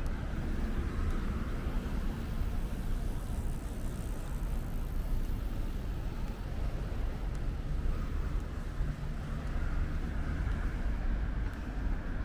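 Steady road traffic noise, a low rumble of passing vehicles with tyre hiss swelling about a second in and again near the end.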